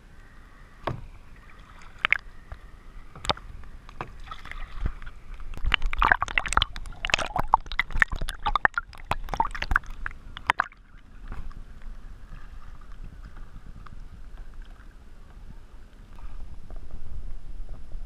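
Lake water sloshing, gurgling and splashing against a camera riding at the waterline of a kayak, with sharp splashes scattered through. The splashing is heaviest from about six to ten seconds in, then drops to a quieter, muffled gurgle.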